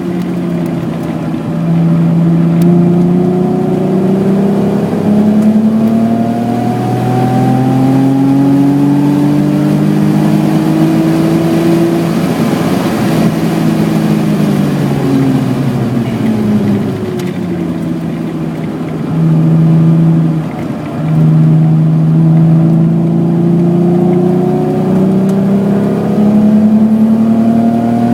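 BMW E28's 3.6-litre straight-six engine pulling hard under acceleration, its pitch climbing steadily for about twelve seconds, then falling away as the car slows. After a short break about two-thirds of the way in, where a gear change falls, it climbs again.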